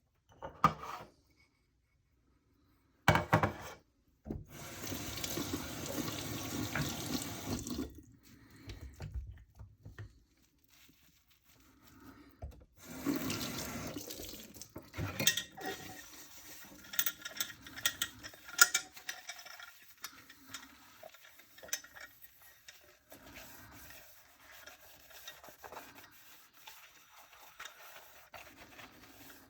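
Tap water running into a sink for a few seconds at a time, twice, between knocks and clinks of dishes being handled, with a loud knock just before the first run.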